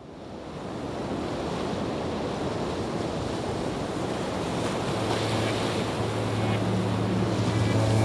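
Steady rushing roar of a large waterfall, fading in over the first second. From about five seconds in, a low droning note of background music comes in under it.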